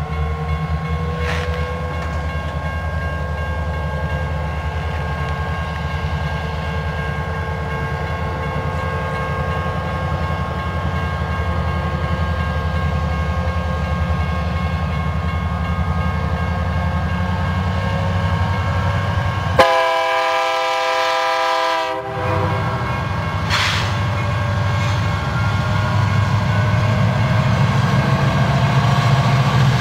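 BNSF diesel freight locomotives approaching with a steady low rumble as they lead a loaded coal train. About twenty seconds in, the locomotive horn sounds one blast lasting a little over two seconds.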